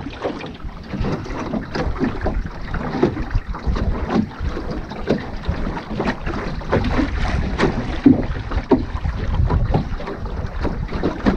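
Water slapping and gurgling against the hull of a small Woods Bee sailing dinghy under way, in short irregular splashes, with wind buffeting the microphone as a low rumble.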